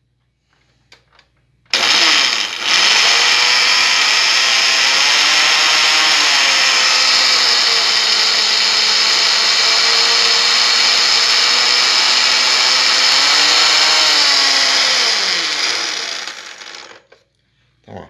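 Vintage Walita blender motor driving its small grinder jar, grinding hard toasted bread into breadcrumbs. It starts about two seconds in and runs as a loud whine with a brief dip soon after. Its pitch sags through the middle under the load, climbs again, then winds down near the end.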